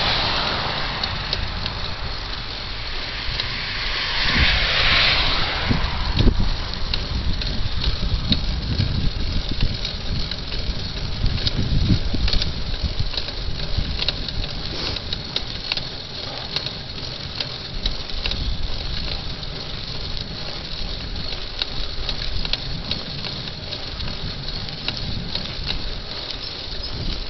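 Wind rumbling on the microphone of a moving bicycle, with tyre noise on asphalt and many small clicks and rattles from the bike. A louder hiss swells and fades about four to six seconds in.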